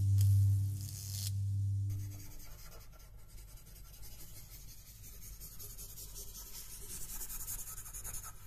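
Dry, scratchy rubbing of a marker drawing strokes on paper, getting a little louder near the end. It follows a deep low drone that fades out about two seconds in.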